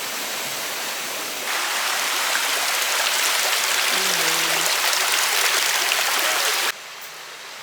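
Rushing creek water, a steady hiss that gets louder about a second and a half in, then cuts off abruptly near the end to quieter ambience.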